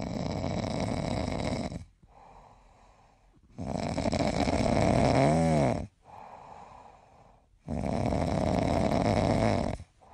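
Sleeping puppy snoring: three long snores about four seconds apart, each followed by a much quieter breath. The middle snore ends in a brief whistle that rises and falls in pitch.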